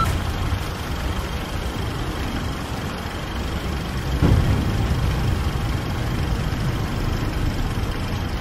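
A steady low rumble, engine-like, with a brief swell about four seconds in.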